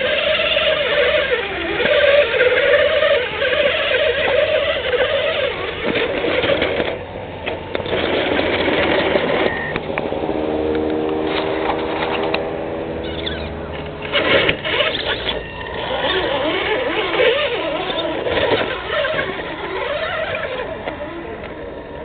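Electric motor and gearbox of a Tamiya TLT-1 RC rock crawler whining under load as it crawls over rocks. The pitch rises and falls with the throttle, holds steady for a few seconds around the middle, and a few sharp knocks come shortly after.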